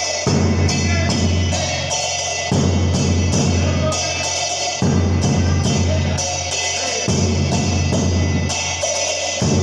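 Live cumbia played on two trumpets and a bombo murguero. The big drum keeps a steady beat with crisp strokes on its mounted cymbal, under held trumpet notes.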